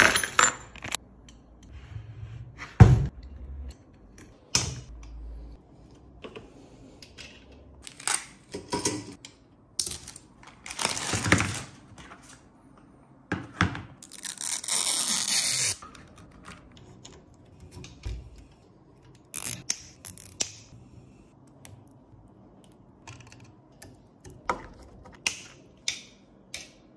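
3D printer parts and packaging being handled during assembly: plastic packaging rustling in a few longer stretches, with scattered clicks, knocks and scrapes as parts are set down and fitted, one sharp knock about three seconds in.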